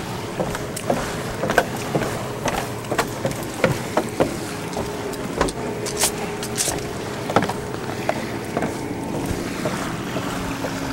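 Steady drone of a distant speedboat's engine, its pitch dropping lower near the end, with irregular footsteps and knocks on a wooden deck and stairs.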